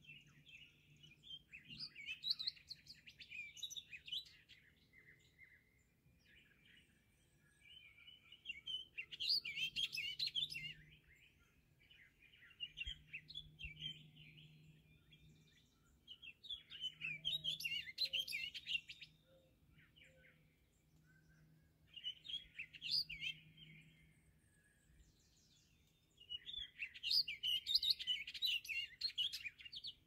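Songbirds singing at dawn: a warbling song phrase of about two seconds comes five times, at intervals of several seconds, with quieter song between, over a faint steady low hum.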